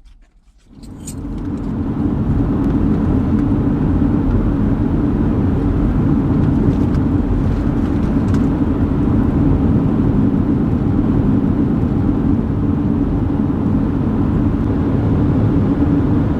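A car being driven: steady low engine and road rumble that swells in about a second in and then holds even.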